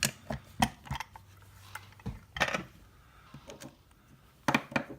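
Lock picks working in an Abus D6 euro cylinder: scattered sharp metallic clicks and taps, several close together at the start, a few more in the middle and a pair near the end.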